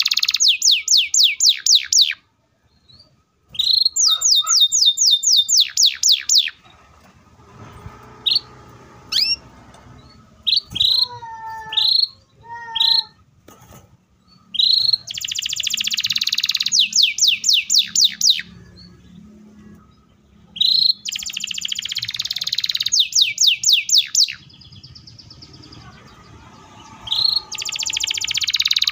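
Canary singing in loud bursts: each phrase is a dense, fast trill followed by a quick run of high notes falling sharply in pitch, five phrases in all. Between the second and third phrases, about 7 to 14 s in, there are only scattered single chirps.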